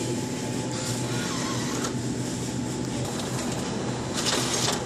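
Self-checkout machine's cash mechanism running with a steady whirr as it takes the cash, with a short rattle near the end.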